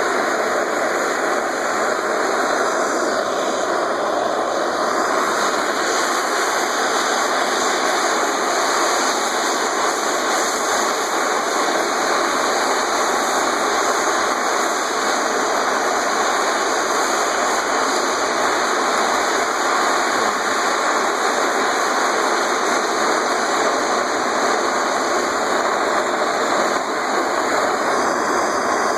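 Hand-held propane torch burning with a steady hiss as its flame heats an aluminum shovel blade for brazing.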